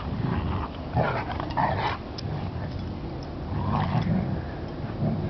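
Two dogs play-fighting on grass, with dog vocal noises coming in irregular bursts, loudest about a second in and again around four seconds.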